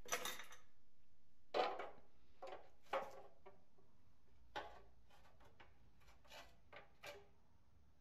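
Metal valve cover of a Volvo D24 diesel being lifted off the cylinder head and handled: a few scattered clunks and knocks, the loudest right at the start, then others about one and a half, three, four and a half and seven seconds in.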